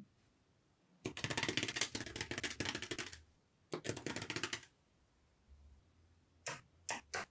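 Small magnetic balls clicking and snapping together in two quick rattling runs of clicks, the first about two seconds long and the second about one. Three single clicks follow near the end.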